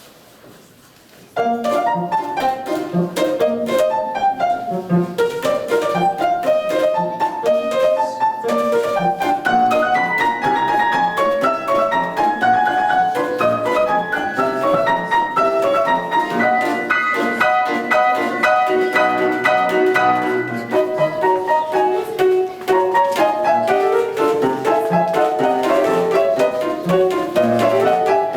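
Piano music at a brisk pace, starting suddenly about a second and a half in after a brief hush, with many quick separate notes.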